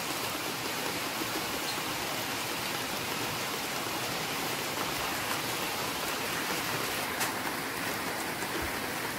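Steady, even hiss of background noise, with one faint click about seven seconds in.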